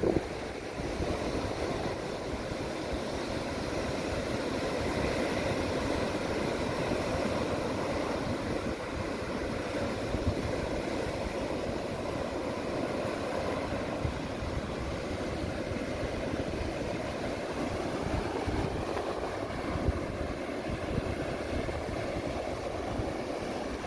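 Surf breaking and washing up a sandy beach, a steady rush of waves, with wind buffeting the microphone.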